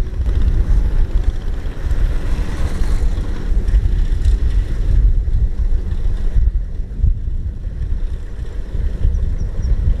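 Single-cylinder diesel engine of a two-wheel walking tractor running steadily under load as it pulls a trailer through mud, with wind rumble on the microphone.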